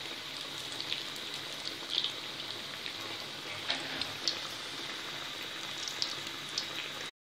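Battered bread pakora slices deep-frying in hot oil: a steady sizzle with scattered small pops and crackles. The sound cuts off suddenly near the end.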